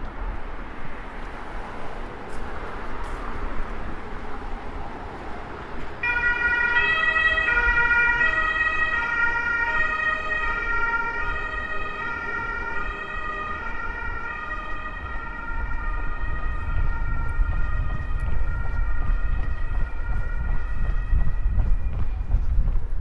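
Two-tone emergency vehicle siren alternating back and forth between two pitches. It starts suddenly several seconds in and slowly fades, over steady city street traffic noise.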